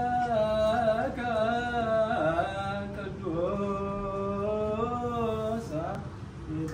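Ethiopian Orthodox liturgical chant sung by male voices: a slow, drawn-out melody whose notes are held for a second or more and bend between pitches.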